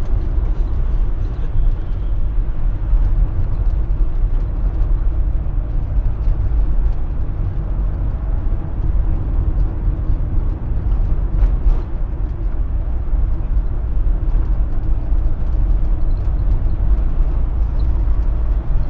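Steady low rumble of engine and road noise inside the cab of a Fiat Fiorino van driving along.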